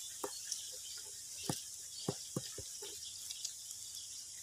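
Several short sucking smacks and clicks as stir-fried river snails are sucked from their shells, over a steady high hiss.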